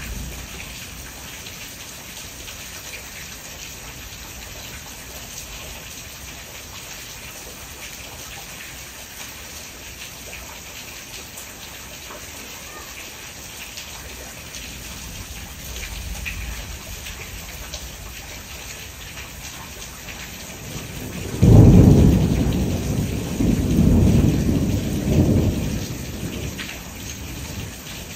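Steady rain falling throughout. About three-quarters of the way through, a sudden loud thunderclap breaks in and rolls on as deep rumbling in several waves for about five seconds.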